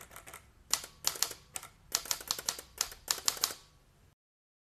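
Typewriter keystroke sound effect: about a dozen sharp key clacks in uneven clusters, then it cuts off suddenly.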